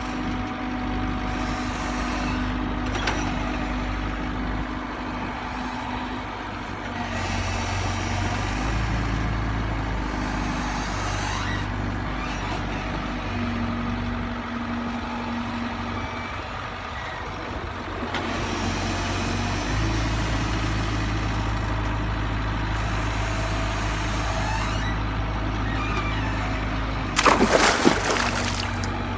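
Truck engine sound running steadily, its pitch stepping up and down at times, with short hisses like air brakes every few seconds. A loud, noisy burst comes near the end.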